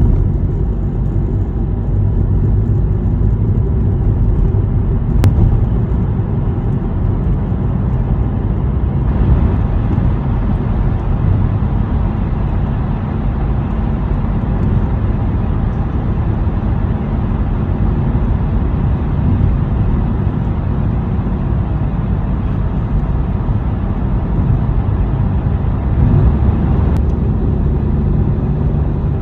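Steady low rumble of a car driving through a road tunnel: tyre and engine noise.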